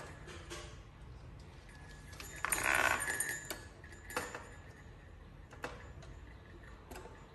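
Stainless-steel wire bird trap being handled: light metallic clicks and clinks from the wire frame and lid, with one louder rattle lasting under a second about two and a half seconds in.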